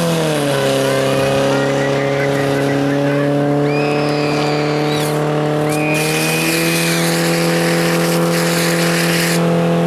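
Portable fire pump's engine running flat out at high revs while it drives water through the hose lines, its pitch dipping slightly about half a second in and then holding steady. Shrill whistles sound over it about four and six seconds in.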